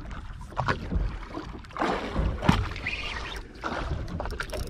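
Boat at sea: water sloshing and splashing against the hull, with scattered knocks. A sharp knock about two and a half seconds in is the loudest.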